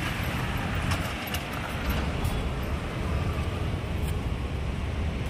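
Steady outdoor noise, a low rumble with a hiss over it, and a few faint clicks.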